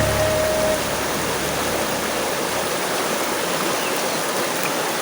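Steady rush of flowing water. A held tone stops under a second in, and a low rumble fades out by about three seconds in.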